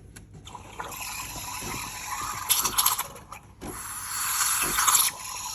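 Coffee machine's steam frother hissing as it releases steam, starting about a second in, briefly dropping off, then coming back stronger.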